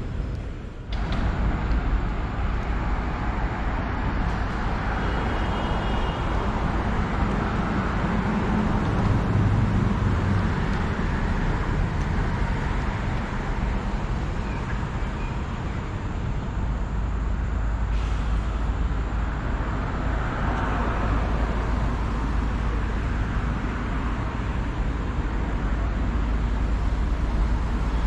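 City street traffic: a steady rumble of cars passing on the avenue, swelling now and then as a vehicle goes by.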